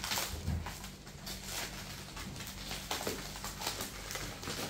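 Toy packaging being opened by hand: irregular rustling and scraping.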